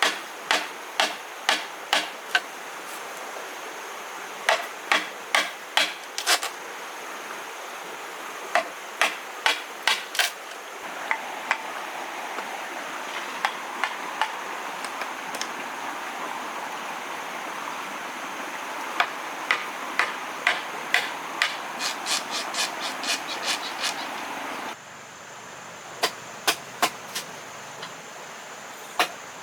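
Repeated sharp blows of a hand tool on bamboo, in quick runs of about two to three strikes a second, over a steady background hiss that drops suddenly near the end.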